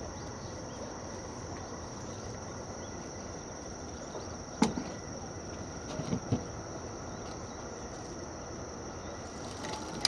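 Steady high-pitched insect trilling, typical of crickets, over a low outdoor background; a sharp knock about halfway through and two softer knocks a moment later.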